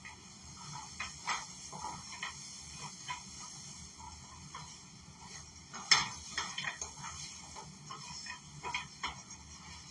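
Spatula stirring nuts around a frying pan: irregular clicks, taps and scrapes of the utensil and nuts against the pan, with a sharper knock about six seconds in.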